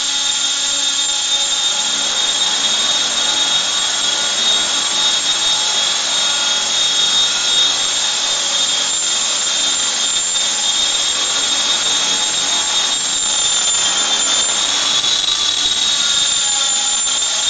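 Align T-Rex 500 electric RC helicopter in flight: a steady high-pitched whine from its motor and gears over the rush of the rotor blades, the pitch dipping briefly about 13 seconds in before settling back.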